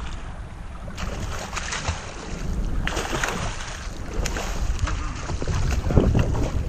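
Wind rumbling on the microphone, with several short bursts of splashing as a hooked bluefish thrashes at the surface beside the boat.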